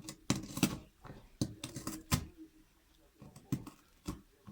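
A cat gnawing and chewing, biting a hole through something, with irregular sharp crunching clicks a few times a second.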